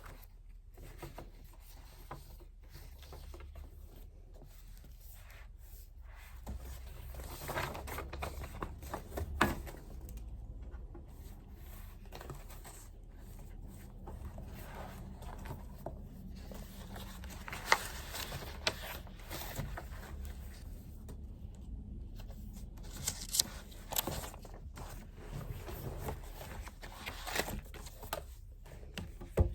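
Pen writing on paper: irregular scratching strokes and rustling, with occasional sharp taps and clicks, over a low steady hum.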